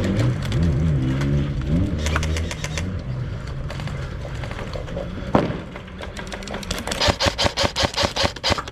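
Airsoft gun firing a rapid string of shots, about seven a second, in the last couple of seconds. A single sharp crack comes about five seconds in, and a distant voice calls out at the start.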